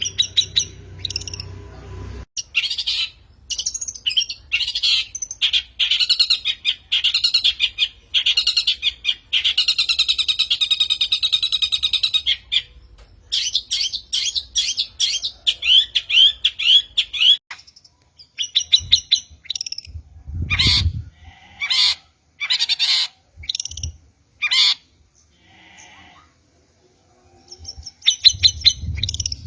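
Long-tailed shrike (cendet) song: a varied run of sharp chirps, fast trills and harsh squawky notes. It thins out into separate calls with short pauses after about eighteen seconds.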